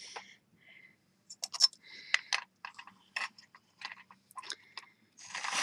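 Small metal pieces clicking, tapping and scraping on a jeweller's soldering bench as a soldering stand is set in place, with a louder scrape near the end.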